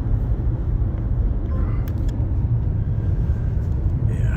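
A steady low rumble, with a couple of faint clicks and a brief faint murmur about two seconds in.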